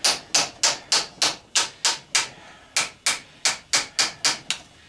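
Hammer striking a punch in quick, even blows, about four a second, with a short pause about two seconds in, driving metal out of a small salvaged part.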